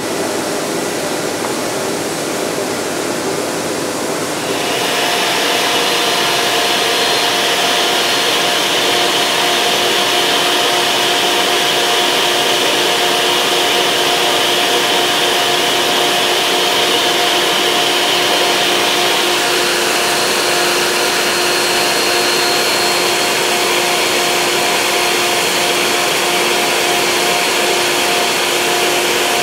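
Sandpaper rubbing on a wooden handle as a steady hiss, then about five seconds in a handheld electric engraving pen starts and runs steadily with a hum and a high whine as it engraves lettering into the wood.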